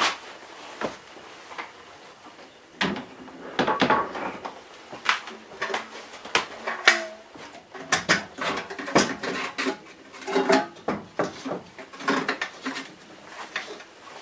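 A galvanized metal bucket being handled and set down on a wooden shelf under a sink drain hose: irregular clanks, knocks and rattles, with a few brief metallic rings.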